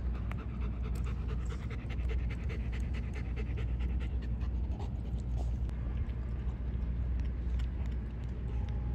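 A German Shepherd panting fast and evenly, the breaths thinning out about two-thirds of the way through, over a steady low rumble.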